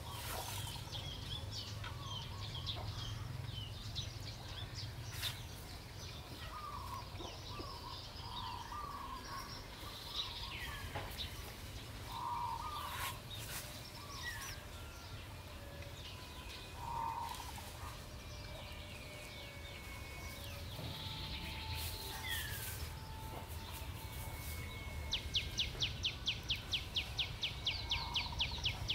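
Chickens clucking and small birds chirping over a steady low hum. In the last few seconds a plastic comb scratches rapidly across the scalp, about six strokes a second.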